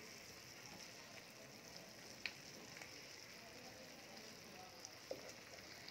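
Faint, steady sizzle of fish pieces and onion masala frying in oil in a non-stick pan while they are stirred, with one light tick about two seconds in.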